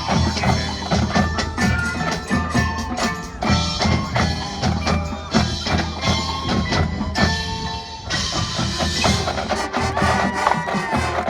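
Marching band playing a field show, with dense percussion and ringing mallet instruments such as bells and marimba over sustained band notes.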